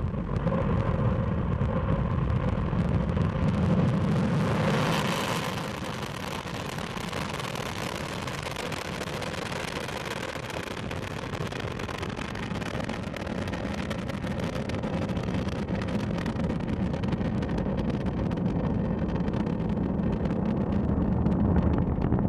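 Proton-M rocket's first-stage engines roaring at liftoff: a steady, loud, deep rumble with crackle. It brightens about four to five seconds in, eases a little, then slowly builds again.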